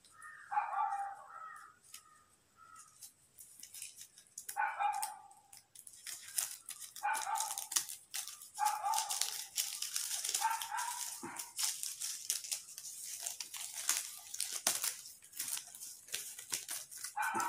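A dog barking several times, single short barks a few seconds apart, over the crackle and rustle of stiff coloured paper being unfolded by hand, which sets in about six seconds in.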